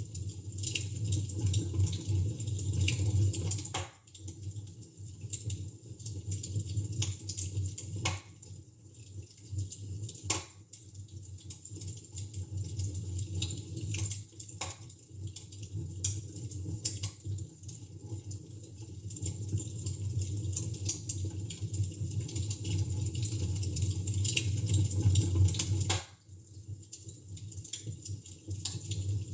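Fire in a fireplace crackling steadily over a low rumble, with about half a dozen sharper pops spread through. The level dips suddenly twice, about four seconds in and near the end.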